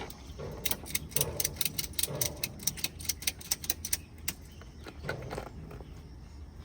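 Rapid, ratchet-like clicking, about four to five clicks a second for some three and a half seconds, from the car bed platform's adjustment being loosened and reset, with a few dull handling knocks.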